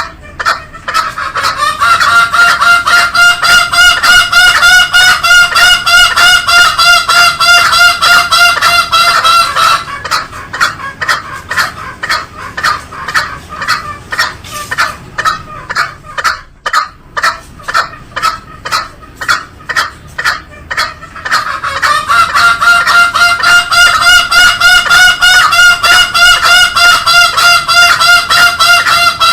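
Green junglefowl calling in a fast run of harsh, pulsed notes, about seven a second. There are two long, loud stretches of steady-pitched pulsing, each lasting about eight seconds, with a thinner, clickier run of pulses between them.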